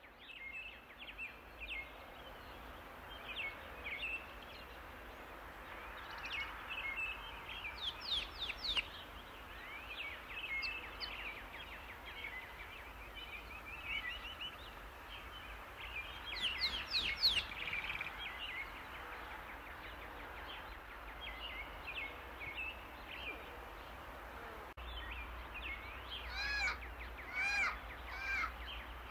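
Several birds chirping and calling over a steady background hiss. Quick, high sweeping whistles come about 8 and 17 seconds in, and a run of repeated arched notes, about two a second, comes near the end.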